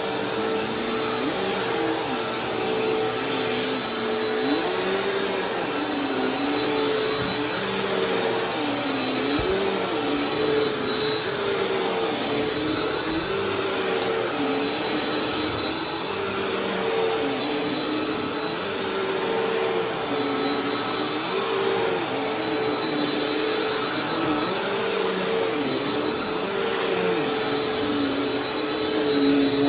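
Bissell vacuum cleaner running steadily on new carpet, with a lower hum that dips and rises every second or two.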